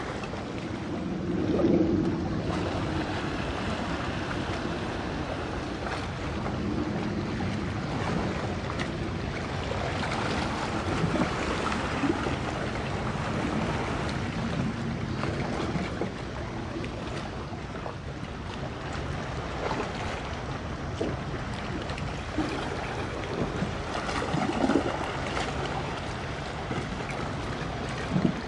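Steady rush of wind and water with a low engine drone from a boat under way at sea, wind buffeting the microphone, with a couple of brief louder swells.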